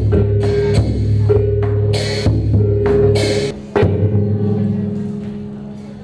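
Music with a steady drum beat, cymbal-like crashes and a held drone. It fades out over the last few seconds.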